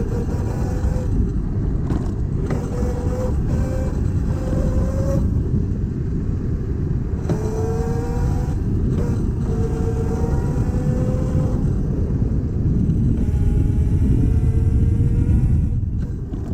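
Vespa scooter being ridden, its motor note holding steady and drifting slightly up and down in pitch, under a constant rush of wind noise.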